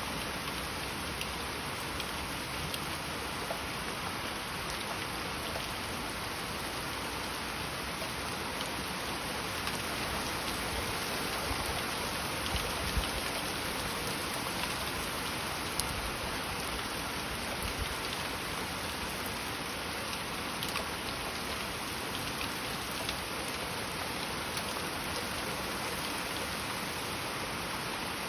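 Heavy rain falling steadily, with scattered individual drops ticking through it.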